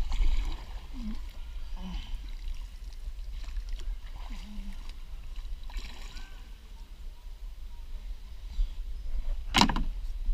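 Kayak on a river: faint water and paddle sounds over a steady low wind rumble on the microphone, with one sharp hit about nine and a half seconds in.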